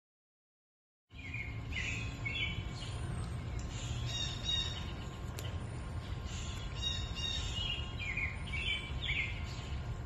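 Silence for about the first second, then a shallow forest stream flowing steadily over stones, with birds chirping repeatedly over it.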